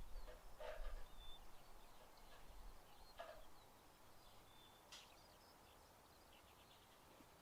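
Near silence with faint bird chirps and a few soft knocks and rustles in the first few seconds.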